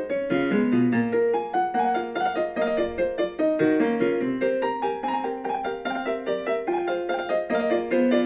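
Background piano music: a quick run of notes played continuously.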